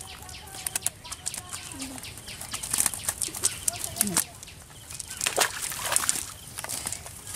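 Live fish flapping and slapping against grass and the mesh of a cast net as they are pulled free by hand, with the net rustling: a busy run of short, irregular slaps and crackles.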